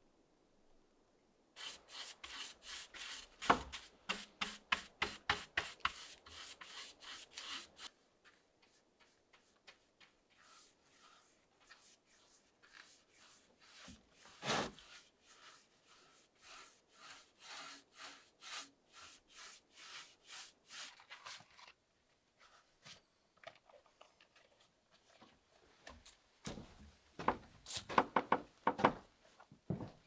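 A paintbrush scrubbing back and forth on wood, a rhythm of rubbing strokes, about three a second and louder for the first few seconds, then softer and slower. A single knock comes about halfway through, and near the end a quick cluster of sharp clicks and knocks.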